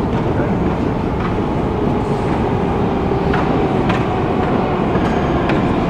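Steady low mechanical rumble of a deep metro station, with a faint steady hum and a few scattered light clicks.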